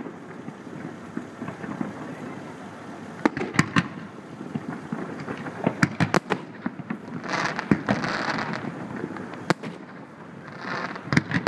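Fireworks display: shells bursting in sharp, echoing bangs, some in quick pairs, with two spells of crackling hiss from crackle effects about halfway through and near the end.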